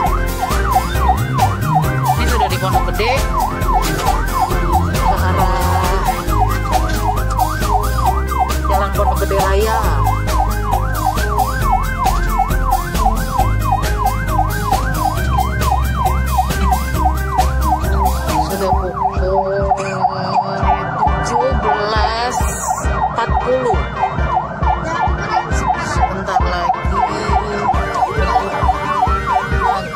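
Emergency vehicle sirens from an ambulance convoy, sweeping rapidly up and down in pitch several times a second without a break. Engine and road rumble runs underneath.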